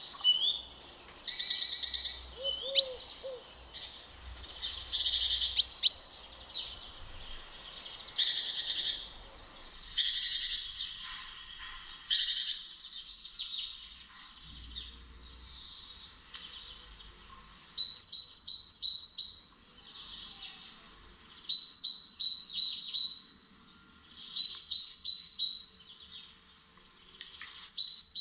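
Songbirds singing: bright, fast phrases of a second or two, repeated every few seconds with short pauses between.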